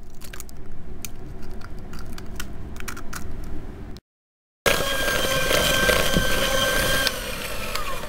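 A few light clicks and knocks as an egg goes into a plastic mixing bowl. Then an electric hand mixer runs loud and steady, its beaters creaming the egg into butter and sugar, with a motor whine that drops in pitch near the end.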